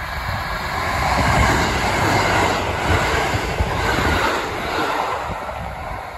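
KiHa 183 series diesel limited-express train running through a station at speed close by: the roar of its diesel engines and wheels on the rails swells as it approaches, peaks as the cars rush past, then eases as it pulls away.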